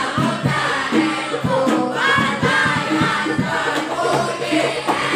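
Boys' voices singing a devotional song over a group of rebana frame drums struck in a steady, quick rhythm.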